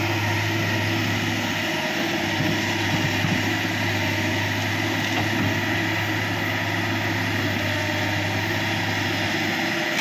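Kobelco crawler excavator's diesel engine running steadily under work as the machine swings its boom and bucket.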